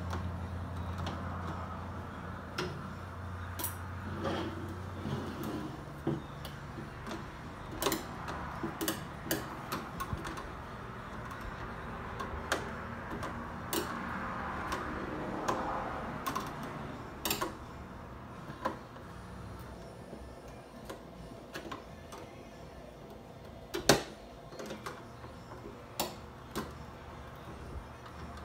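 A flat-tip screwdriver working at the plastic housing of a bug zapper: irregular small clicks, taps and scrapes, with one louder knock near the end. A low steady hum runs under the first five seconds or so and then stops.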